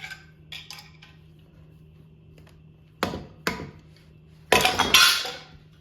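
A screwdriver knocks on the stuck piston of a Kohler CV16 engine to drive it out of the cylinder: two sharp metal knocks about half a second apart, then a louder clatter lasting under a second.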